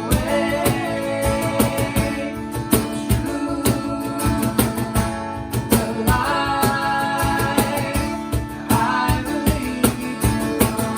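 Live worship band music: a singer over strummed acoustic guitar with a steady drum beat.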